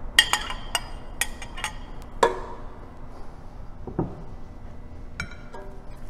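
A metal spoon clinking against a stainless steel stockpot, with about seven short ringing clinks in the first two and a half seconds. A duller knock follows about four seconds in, and a few lighter clicks come near the end.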